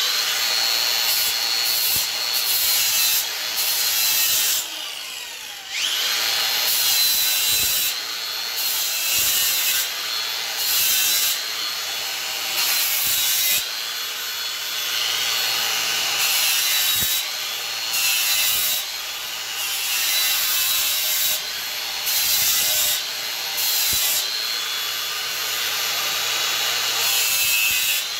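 Angle grinder fitted with an 80-grit sanding disc, running at speed and sanding the inside of an ash bowl. The steady motor whine is overlaid by scratchy rubbing that comes and goes as the disc is pressed to the wood. About five seconds in, the motor winds down and then spins back up to speed.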